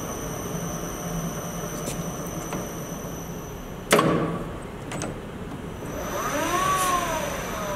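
Acer 1440V E-Lathe's variable-speed spindle drive, its Leeson motor humming with a steady high electronic whine as the spindle slows down. About four seconds in there is one sharp clunk as a headstock lever is shifted, then near the end the motor whine rises and falls once.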